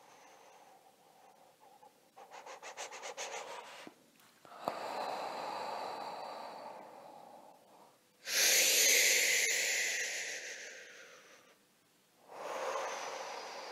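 A person breathing out heavily through the mouth in long hissing exhalations, the loudest one about eight seconds in, slowly fading. A run of rapid pulses comes about two seconds in.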